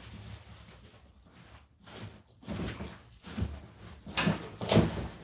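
Unboxing handling of a metal chop saw's packaging: cardboard and plastic wrap scraping and rustling, with several dull knocks, the loudest near the end.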